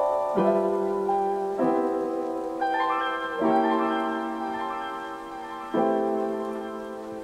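Background music: slow piano chords, a new one struck every second or two and left to ring and fade.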